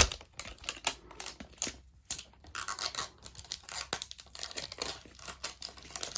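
Plastic wrapping of an LOL Surprise ball crinkling and tearing as it is peeled open, in a run of small clicks and crackles with a sharp snap at the start; the crackling grows denser about halfway through.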